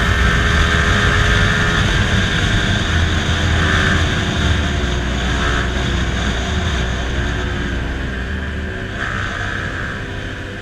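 Yamaha MT-15's single-cylinder engine running while under way, growing gradually quieter toward the end.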